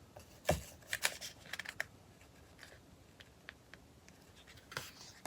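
Glossy magazine pages being handled and turned: a soft thump about half a second in, then a run of crisp paper rustles and ticks, and another rustle near the end.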